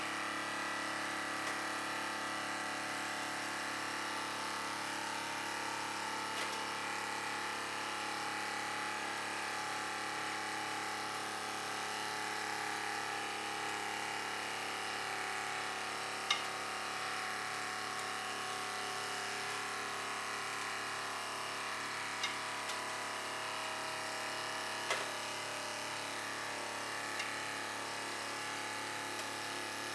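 Hydraulic press's pump motor running steadily with a low pulsing hum as the ram squeezes a sledgehammer. A few sharp cracks come as the wooden handle splits, the loudest a little past halfway.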